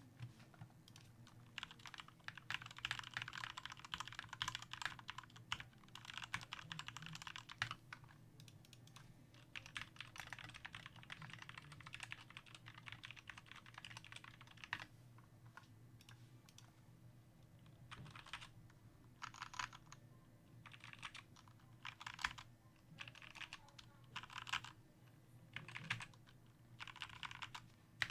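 Mechanical keyboard typing on a Glorious GMMK Compact 60% with lubed Gateron Yellow SMD linear switches and lubed, clipped stabilisers. Fast continuous runs of keystrokes in the first half give way to short separate bursts of a few keys each in the second half.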